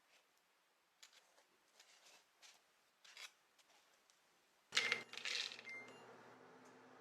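Light clicks and taps of kitchen items being handled, then a louder clatter about five seconds in, after which a steady low hum sets in.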